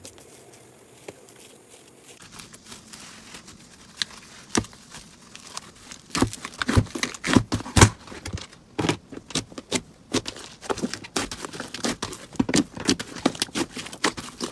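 Slime being squeezed and pressed by hand: irregular sticky crackles and pops, sparse at first, then denser and louder from about six seconds in.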